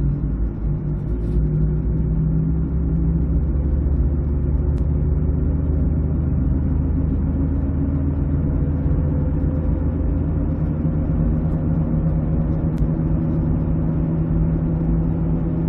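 2006 Ford Escape Hybrid driving, heard from inside the cabin: road noise with a steady hum from the front end, its pitch creeping up slightly as the car gains speed. The hum is still there with the car running on electric power, which the owner takes for a bad front wheel bearing.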